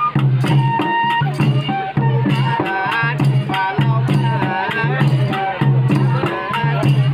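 Rabha folk dance music: a double-headed barrel drum keeps a steady repeating beat under a rattle and a high, wavering melody.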